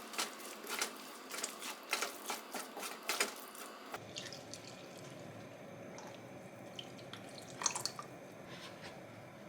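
A quick run of small clicks and taps for about four seconds, then it cuts to a quieter stretch with a faint steady background and a few more light clicks near the end.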